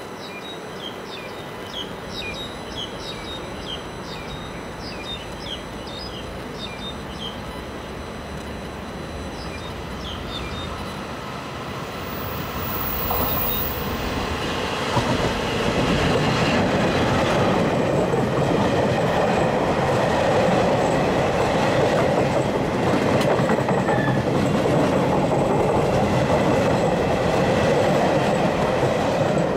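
Taiwan Railways electric locomotive E237 and its eight Chu-Kuang passenger cars approaching and passing close by. The sound grows much louder about halfway through, into a steady loud noise of the locomotive and the wheels running on the rails.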